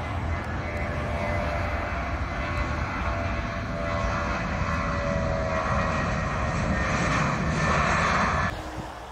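Jet engines of a Ryanair Boeing 737 running as it rolls along the runway: a steady rushing noise with a faint whine that grows louder, then cuts off abruptly near the end.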